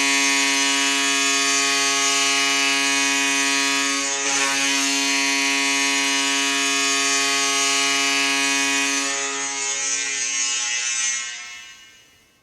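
NHL arena goal horn sounding one long, loud, steady blast with a brief dip about four seconds in, then fading out near the end.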